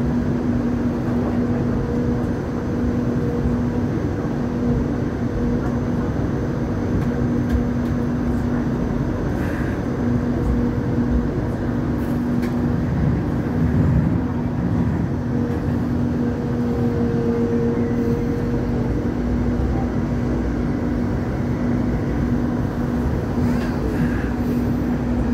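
Hong Kong Light Rail Phase III car running along the line, heard from on board: a steady rumble of wheels and running gear with a constant low hum.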